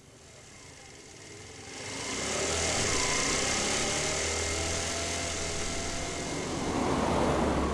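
Small engine of a motor scooter running, growing louder over the first two seconds and then holding steady.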